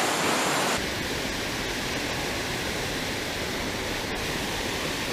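Water rushing steadily over a small spillway weir and churning into the concrete channel below. Under a second in, the rush abruptly drops a little and changes tone, then holds steady.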